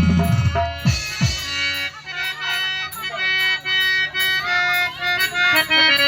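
Instrumental music: a sustained, reedy melody over a beat with regular ticking percussion, and heavy drum beats at the start that drop away after about two seconds.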